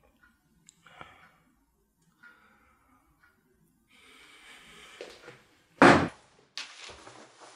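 A few faint small knocks, then a hiss that builds for about two seconds and a sudden loud bang about six seconds in, followed by a noisy rumble.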